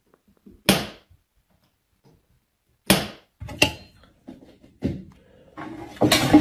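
A wall light switch flipped by a cat's paw: two sharp clicks about two seconds apart. Near the end, a louder jumble of clatter and rustling.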